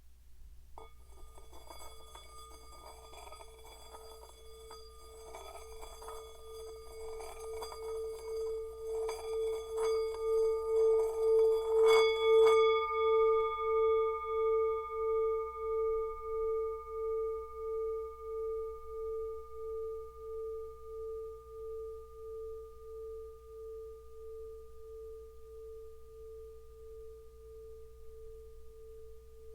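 Tibetan singing bowl played by circling its rim: a single pulsing tone with a scraping texture swells steadily louder for about twelve seconds. A sharp tap then ends the rubbing, and the bowl rings on with a slow wavering beat, fading gradually.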